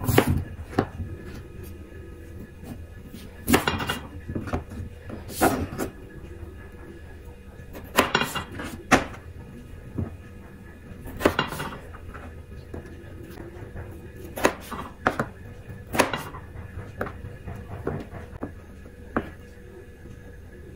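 A knife cutting through raw potatoes and knocking down onto a plastic cutting board, a single cut at a time at irregular intervals of one to three seconds, with a quick cluster of three cuts around the middle.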